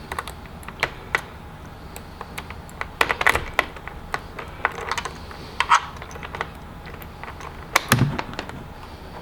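Irregular light clicks and taps of hands working the Rad City e-bike's battery key switch, turning it on to show the state of charge.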